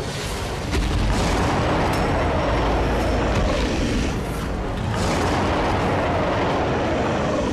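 Loud, deep rumbling and booming sound effects over dramatic music, in two long swells.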